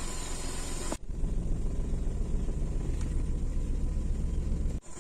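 A motor vehicle's engine running low and steady, the sound breaking off abruptly about a second in and again near the end.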